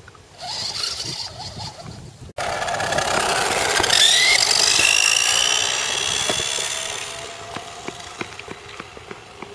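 1990s Air Beam electric RC car's motor whining as it drives, with tyre noise. The whine rises in pitch as the car speeds up about four seconds in, then fades as it pulls away.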